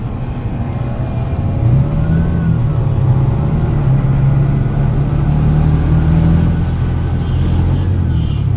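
Motor vehicle engine running under way with a low, steady hum; its pitch rises about two seconds in as it speeds up, then holds, and eases off near the end.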